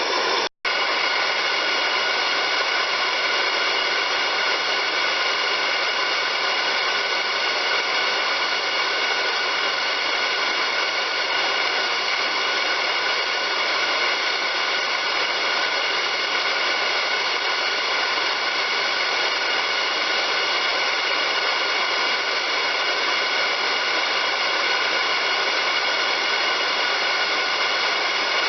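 Cutter-sharpening grinding machine running steadily: a hiss with a high whine of several steady tones. It cuts out for an instant about half a second in.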